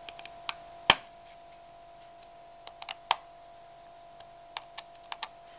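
Precision screwdriver nipping up tiny screws on an iPod Touch 2G/3G's metal plate: scattered small sharp clicks of the driver tip on screws and metal, the loudest about one second and three seconds in, over a faint steady hum.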